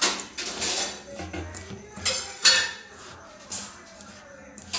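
Water splashes into a steel bowl of rice flour and grated coconut, then a hand mixes it, scraping and knocking against the metal bowl in a few short bursts, the loudest about two and a half seconds in.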